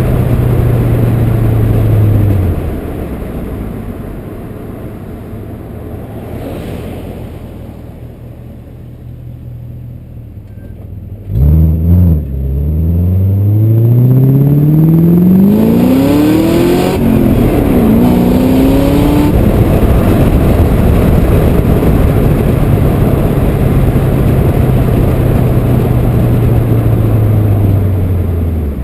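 2003 BMW 540i's 4.4-litre M62 V8 with the rear muffler deleted, driving at part throttle. About eleven seconds in it is floored: a sudden loud blare, then the exhaust note climbs steeply in pitch, drops at an upshift and climbs again. After that it holds a loud, steady run at speed.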